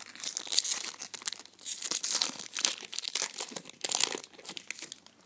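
Foil wrapper of a 2012 Topps football card pack being torn open and crinkled by hand, in several bursts of rustling and ripping.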